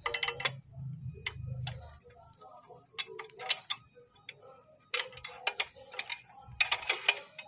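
Ratchet wrench on a long socket extension clicking in four short bursts of rapid ticks as a mounting bolt is turned.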